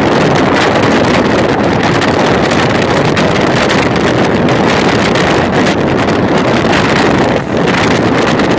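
Steady, loud wind rush on the microphone of a vehicle moving along a road, with the vehicle's road noise underneath.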